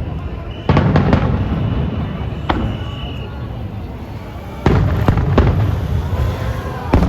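Firework shells bursting overhead: a loud boom about a second in, a sharp crack shortly after, a quick run of three booms about two-thirds through and another at the very end, each trailing off in a long rumbling echo.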